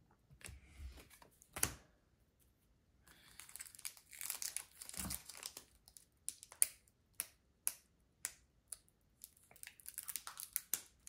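Faint crinkling and rustling of a Pokémon booster pack's foil wrapper a few seconds in, then a run of small sharp clicks and taps from trading cards being handled.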